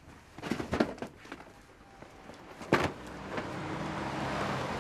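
A few knocks early on and a single sharp knock near three seconds in, then a car passing along the street, its noise rising and building toward the end.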